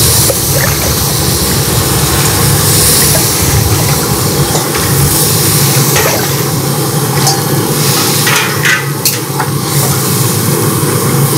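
Metal ladle stirring potato curry in a steel kadai, knocking and scraping against the pan several times in the second half, over a steady low roar from the burner underneath.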